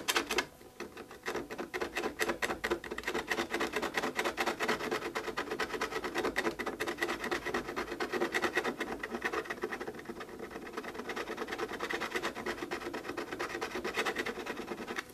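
Plastic card scraping rapidly back and forth over hardened burn-in wax filler in a wooden surface, levelling the fill: a steady, fast run of scratchy strokes that eases off a little after the middle.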